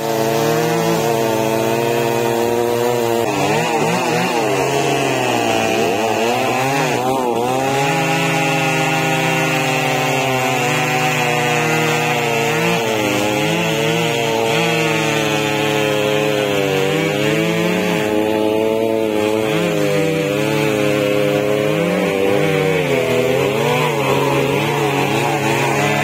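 Two-stroke chainsaw running at high revs while cutting into the base of a tree trunk, its engine pitch dipping and recovering several times as the chain bogs down in the wood.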